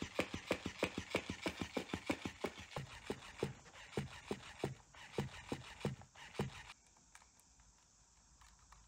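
Catit Groovy Fish, a battery-powered plush fish cat toy, flapping its body and slapping on a hard wooden floor in quick repeated slaps, about six a second. About three seconds in, it flaps on carpet, with slower, duller thumps that stop a little over two-thirds of the way through.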